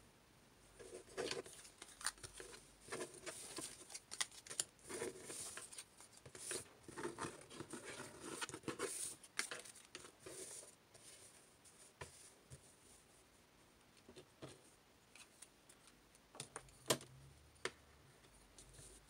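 Stiff cardboard pieces being picked up, slid and set down on a wooden tabletop: a run of light scrapes and clicks that thins out after about ten seconds, with one sharper click near the end.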